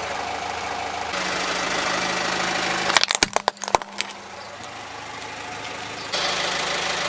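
Car engine idling while a tyre rolls over a plastic toy, which cracks and snaps in a quick run of sharp cracks about three seconds in.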